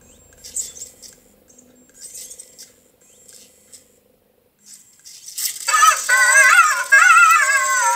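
Anki Cozmo toy robot: a few faint clicks and a thin hum from its small motors. From about five seconds in comes its electronic voice, a loud warbling, wavering-pitched chatter, as it plays one of its emotion animations.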